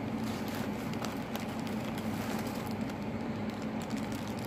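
A steady low electrical hum, like a small motor or pump, with a few faint ticks and rustles from handling the box's packing.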